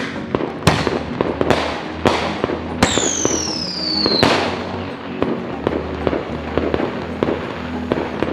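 Consumer fireworks going off: a run of sharp bangs less than a second apart, then a falling whistle lasting over a second that ends in a bang, followed by a scatter of smaller crackling pops.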